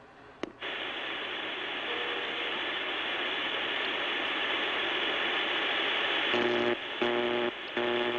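A dense, steady rattling rush of noise sets in just under a second in. Near the end a buzzer sounds three short times over it.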